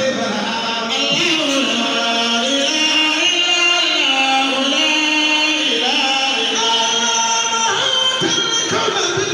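A man's voice singing an Islamic praise song into a microphone, in long held notes that slide from one pitch to the next.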